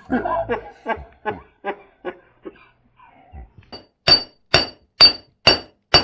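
Hammer blows on the steel shaft of a rusty, seized concrete-mixer pulley, knocking it loose. First come five light taps about every half second. Then, from about four seconds in, come sharp, ringing metal-on-metal strikes about twice a second.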